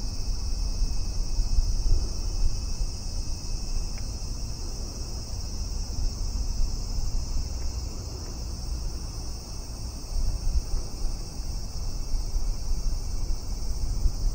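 Steady, high-pitched drone of a summer insect chorus in the trees, unbroken throughout, over a low fluctuating rumble of wind on the microphone.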